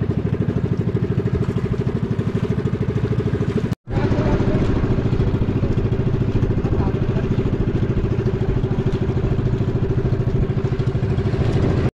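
Small boat engine of a wooden outrigger boat running steadily under way, a fast, even putter with a brief break about four seconds in.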